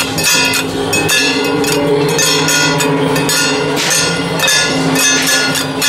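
Loud music with a fast steady beat of sharp hits under held, horn-like notes that change pitch every second or so.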